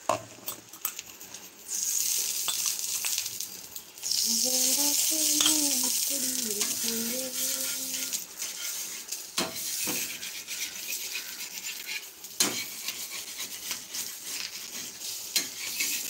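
Egg frying in a pan, sizzling, louder from about four seconds in, with a metal spatula knocking and scraping on the pan a few times in the second half. A wavering voice-like call sounds for a few seconds in the middle.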